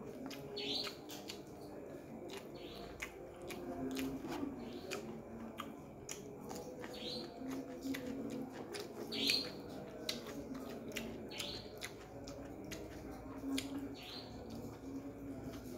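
Close-up mouth sounds of eating chicken hearts and rice by hand: wet chewing, smacking clicks. A bird chirps briefly about every two seconds behind it.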